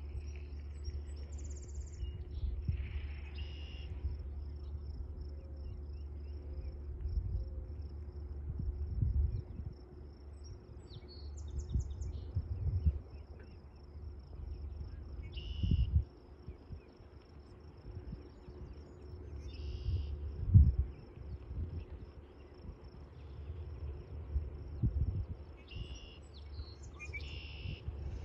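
A steady, high, pulsing insect trill, with short bird calls several times. Wind gusts rumble on the microphone, loudest about two-thirds of the way through.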